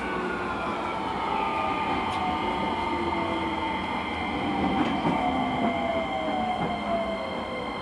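Ride noise inside a JR East E231 series motor car, with the traction motor and inverter whine falling slowly in pitch over steady wheel and track rumble as the train slows.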